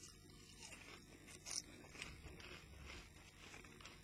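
Faint chewing of a potato crisp: soft, scattered crunches and mouth clicks.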